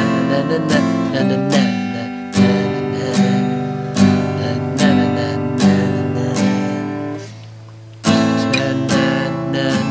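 Steel-string acoustic guitar strummed in a steady rhythm, each chord ringing on between strums. The strumming stops about seven seconds in and the last chord fades, then it starts again about a second later. The strings are over a year old, which the player calls ancient.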